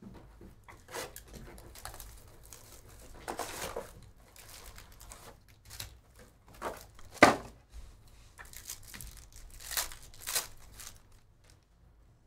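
Plastic trading-card pack wrappers and wrap crinkling and tearing as packs are ripped open, in short rustling bursts. A sharp knock about seven seconds in is the loudest sound.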